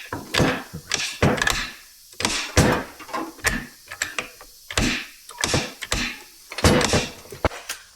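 Manual four-speed gear shifter being worked through its gears, a run of metallic clunks and clicks from the shift lever and linkage.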